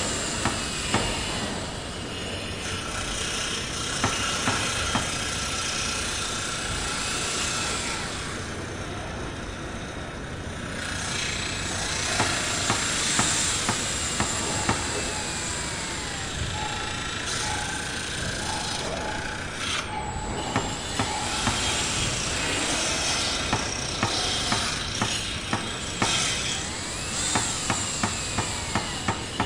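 Construction-site ambience: machinery running steadily under repeated sharp knocks and clanks of tools, which come thicker and faster in the last third.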